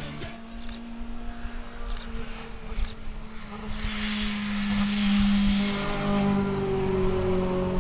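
Race car engine running hard as the car climbs the hill, holding a steady note that grows louder as it approaches and passes close by.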